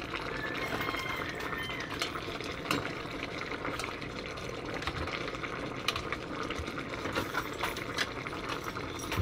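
Tomato-based chicken stew simmering in an electric cooking pot while a metal spoon stirs through the potatoes and carrots. Light bubbling runs under scattered small clinks and scrapes of the spoon against the pot.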